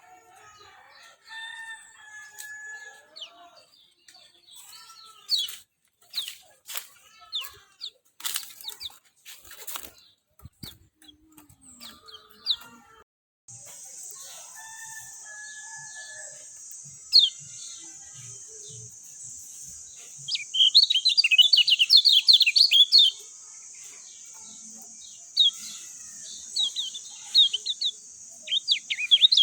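Lemon-bellied white-eye (kecial kuning) calling: scattered chirps and short whistled notes, then two bouts of fast, loud chattering in the second half. A steady high hiss comes in about halfway through.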